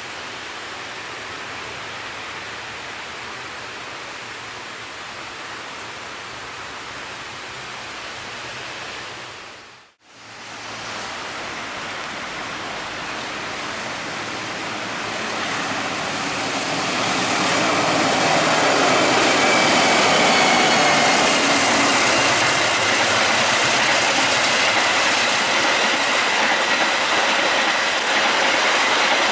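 Steady rumbling noise, then after a brief gap a train coming up and passing at speed. It grows louder through the middle and stays loud, with wheels clicking over the rail joints and a steady high whine or squeal from the wheels on the rails.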